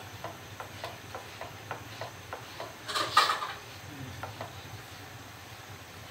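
Spatula pressing and patting a naan in a nonstick frying pan: a quick run of light taps, about four a second, with a louder, longer noise about three seconds in, then a few more taps before it settles.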